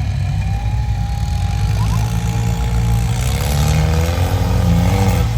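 A steady, low vehicle engine rumble. From about three seconds in, an indistinct voice rises over it.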